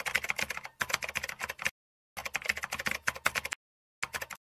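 Rapid keyboard-typing clicks, a sound effect laid over text typing itself out on screen, in three runs broken by short gaps of dead silence, the last run brief.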